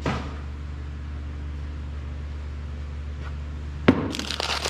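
Steady low background hum, broken by a short knock at the start and a sharp knock about four seconds in as a new engine piston is picked up, then the crinkle of its paper wrapping being pulled open.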